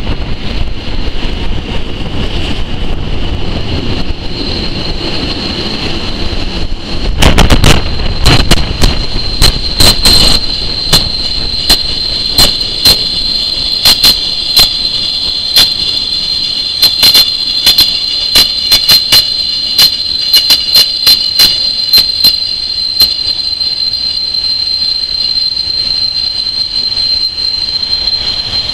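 Historic train running through a tunnel, heard from an open carriage window: a steady high-pitched wheel squeal over the rumble of the run. From about a quarter of the way in come many sharp, irregular clacks of the wheels, which die out over the last few seconds.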